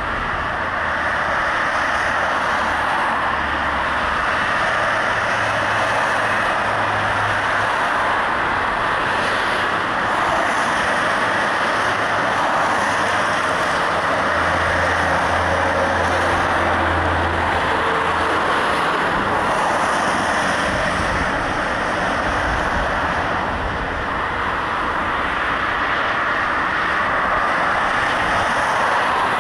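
Steady road traffic noise, with vehicle engines running and passing.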